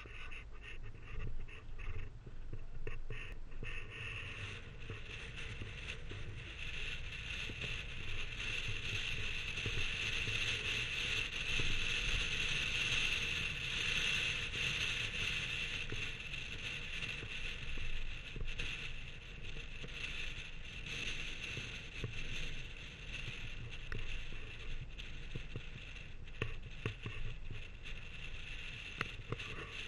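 Wind and road noise picked up by a camera on the hood of a moving car: a steady hiss over a low rumble, swelling a little partway through, with scattered small knocks.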